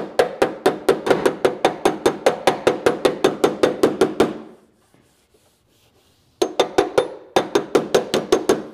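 A plastic body-filler spreader slapping polyester glazing putty onto a steel car door in rapid, evenly spaced knocks, about six a second. The knocks stop for about two seconds midway, then resume.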